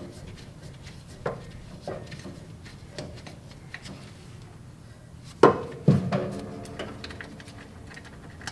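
Metal hand tools and loosened car parts clinking and knocking during disassembly, with a few light clicks and then two loud knocks about five and a half seconds in that ring briefly.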